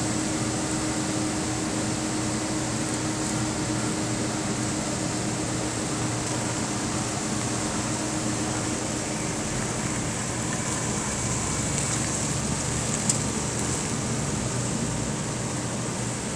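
A 2004 Ford Ranger pickup's engine running as the truck moves slowly, a steady low running noise with a faint hum. There is one sharp click about thirteen seconds in.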